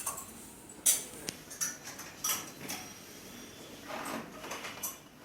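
A few sharp clicks and knocks, the loudest about a second in, some with a brief high ringing after them.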